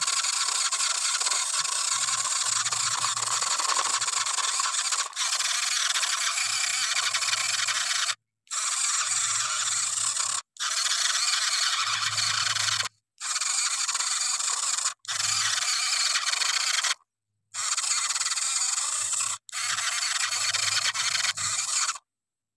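Toy tractor's wheels spinning and scraping in loose dirt and gravel, with its small motor running: a steady, harsh scraping hiss. It cuts off abruptly to silence several times.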